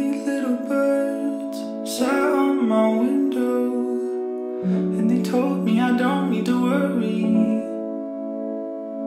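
Background music with plucked guitar, sustained chords and a moving melody line.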